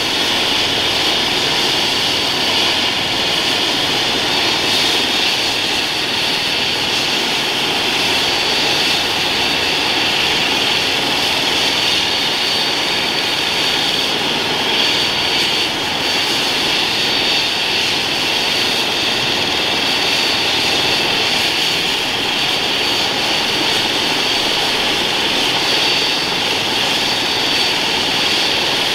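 Airbus H135 helicopter running on the ground after engine start, its main rotor turning: a steady high turbine whine over even rotor and engine noise.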